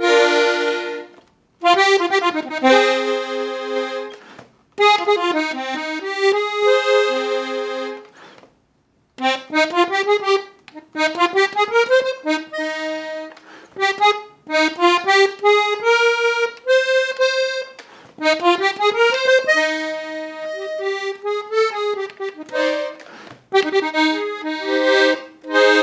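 Parrot accordion tuned in F playing a melody in short phrases, with several quick rising runs of notes and brief pauses between phrases. The seller states the reeds are sound and the bellows have no air leaks.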